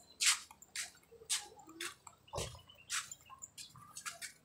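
Footsteps scuffing on wet concrete pavement, about two steps a second, with one heavier step about halfway through.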